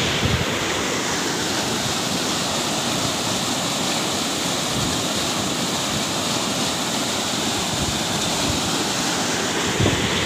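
Muddy floodwater rushing in a rain-swollen stream, a steady roar of churning water, with wind buffeting the microphone now and then.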